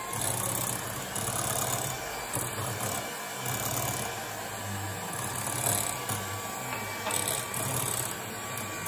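Electric hand mixer running steadily, its beaters whipping a creamy no-bake cheesecake filling.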